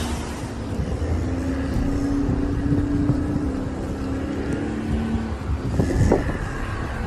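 A motor vehicle's engine running with a steady hum in snowy street conditions, over a constant low rumble of wind on the microphone.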